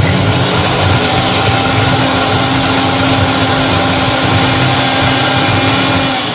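Electric mixer grinder running at full speed, grinding boiled jackfruit seeds with sugar: a loud, steady motor whine that starts abruptly and dies down near the end.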